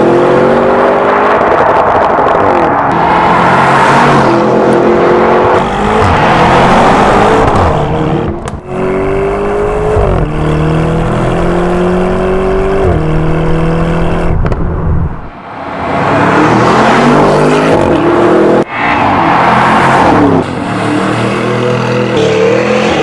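Lamborghini Urus twin-turbo V8 through a QuickSilver valved sport exhaust, accelerating hard. The engine note climbs in pitch and drops back at each upshift, several times over, with a few brief lifts off the throttle.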